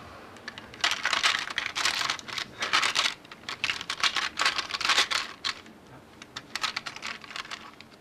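Small trinkets (buttons, pearl strands, bangles, a spoon) clicking, rattling and scraping in a clear plastic drawer as a hand rummages through them, in irregular clusters of clicks and rustles.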